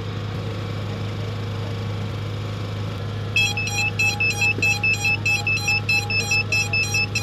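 A steady low hum, then from about three and a half seconds in a rapid run of electronic beeps from the FPV gear being rebound, about four beeps a second.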